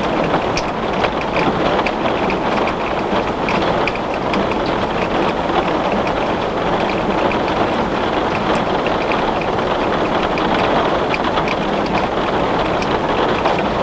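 Heavy rain falling on glass: a steady, dense hiss with many small, sharp drop impacts scattered through it.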